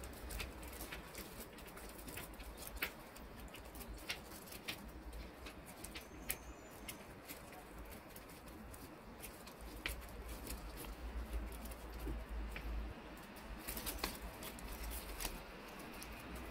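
Origami paper rustling and crinkling as hands crease and shape a folded paper dragon, with many small irregular clicks and taps. A low hum runs underneath.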